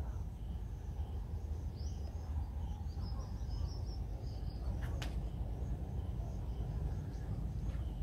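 Quiet beach ambience: a steady low rumble, with faint high chirping about two to four seconds in and a single click about five seconds in.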